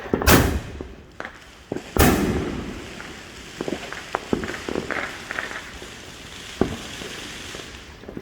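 Consumer aerial fireworks: two loud bangs about two seconds apart, the second trailing off in a long fading hiss, followed by scattered sharp crackling pops.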